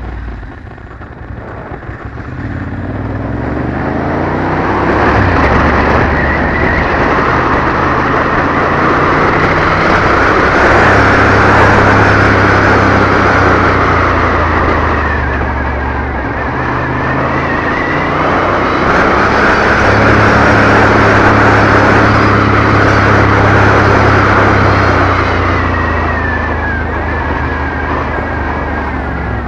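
Ducati Monster's V-twin engine under way, buried in heavy wind rush on a helmet-mounted camera's microphone. The engine note falls at the start, then rises and holds at a few steady pitches. The wind noise swells twice and eases near the end.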